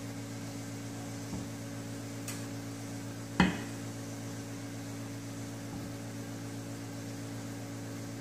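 Steady electrical hum, with one sharp knock a little over three seconds in as cake batter is scraped from a glass mixing bowl with a wooden spatula.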